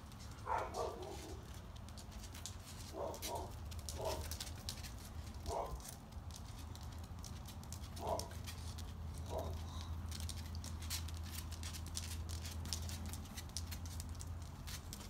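Dog whimpering: about six short whines spread over the first ten seconds.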